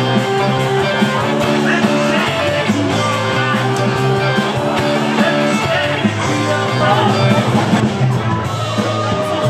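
Live rock music with guitar and singing over a steady beat.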